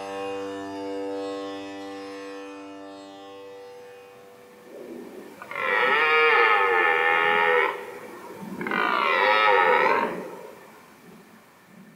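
Background music fading out over the first few seconds, then a red deer stag's rutting roar, twice, each roar about two seconds long.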